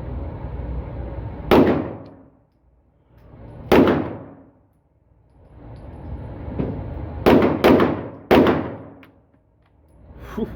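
Five gunshots, each ringing out briefly: two about two seconds apart, then a quick run of three near the end.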